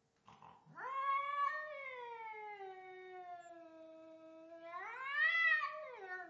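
Persian cat caterwauling: one long, drawn-out yowl whose pitch sags slowly, then rises and grows louder near the end before falling away. The cat is angry and agitated after a fight.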